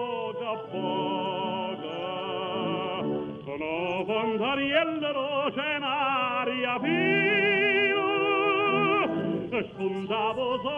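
Background music: an operatic voice singing long held notes with wide vibrato, the longest held for about two seconds late in the stretch.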